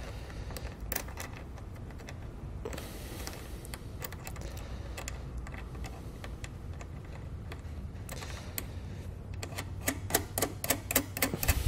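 Small metal clicks and ticks as a bolt and nut are fitted by hand to a steel mounting bracket for a flat-tow wiring connector. The clicks turn into a quick run of clicks in the last two seconds.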